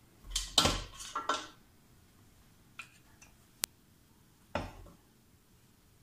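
Ceramic plates and cutlery clinking and clattering on a table: a quick cluster of clatters at the start, a few light ticks and one sharp click in the middle, and another clatter later on.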